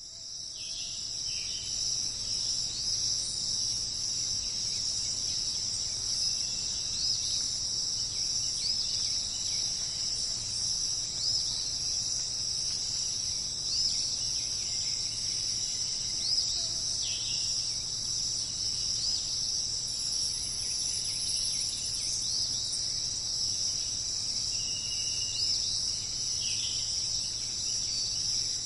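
A steady, high-pitched insect chorus, crickets or bush-crickets chirring, fades in over the first couple of seconds. Short bird chirps come now and then over it.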